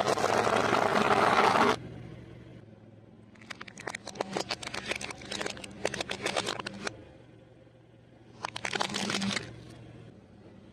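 Car tyre rolling over and crushing plastic toy trucks: a run of sharp plastic cracks and snaps lasting a few seconds, with a shorter burst of cracking later. It opens with a loud crunching burst, and a low car engine hum runs underneath.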